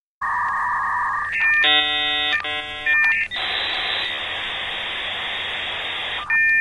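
Electronic intro sound effects: a steady beep tone, two short buzzy multi-tone chords, then about three seconds of static-like hiss, ending in a steady high two-note tone.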